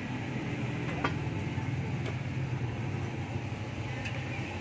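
Steady street traffic noise with a low hum, with a light click about a second in and another about two seconds in.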